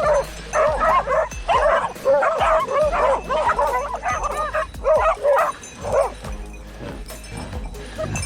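A pack of hunting dogs baying at a wild boar held at bay, several dogs yelping and barking over one another in quick, high-pitched cries. The barking thins out about six seconds in.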